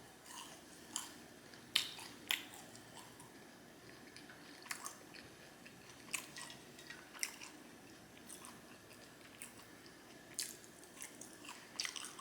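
A person chewing food close to the microphone: soft wet chewing broken by irregular sharp mouth clicks and smacks.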